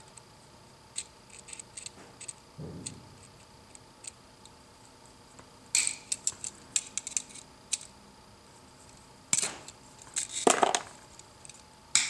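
Light metallic clicks and clinks of wire cutters and a duplex electrical outlet being handled, in scattered small taps with a busier run in the middle and two louder clacks near the end.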